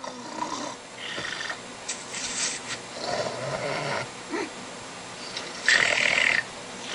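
A person snoring: several uneven, rasping snores, the loudest near the end.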